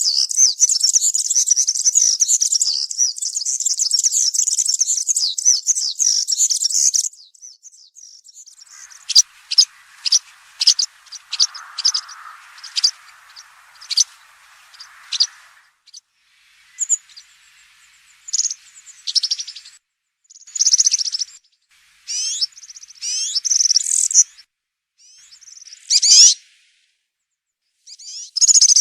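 European serin singing: a fast, high-pitched jingling song that runs on unbroken for about seven seconds, then breaks off into scattered short notes and brief bursts of song. This is the wild, field-style song used to teach young captive serins.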